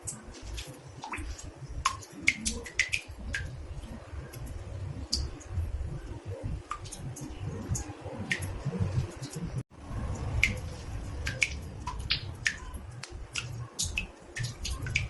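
Water drops falling irregularly into a bathtub, each a short rising plink, several a second, over a low steady rumble. The sound cuts out for an instant about ten seconds in.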